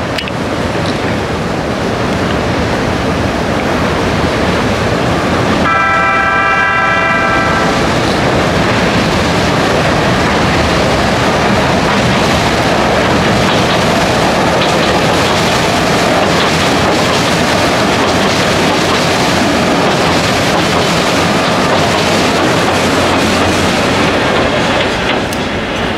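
Ikawa Line train running across a steel bridge, its wheels clattering steadily on the rails as it draws close. About six seconds in, its horn sounds once for roughly a second and a half.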